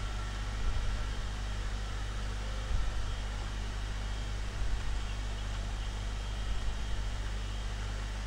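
Steady low hum with an even hiss: room background noise.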